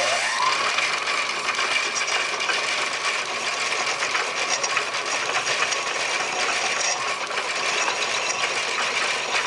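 Metal lathe running with a steady mechanical whir and rattle from its motor and gears, a short rising whine at the start as it comes up to speed.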